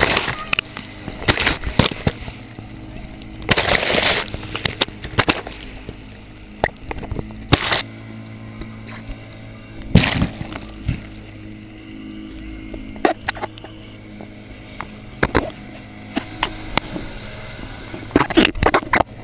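Sea water repeatedly splashing and rushing over a camera at the waterline, in loud surges a few seconds apart. Beneath it is the steady hum of an inflatable motorboat's outboard engine.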